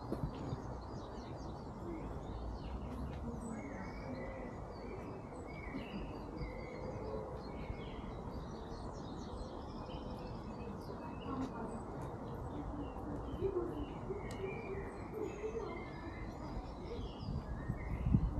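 Small birds chirping and twittering throughout, with a pigeon cooing low now and then, over a steady low background hum.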